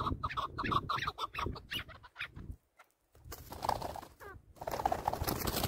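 Chukar partridge calling a rapid series of clucking notes, about six a second, for the first two seconds. After a short silent gap come bursts of noise.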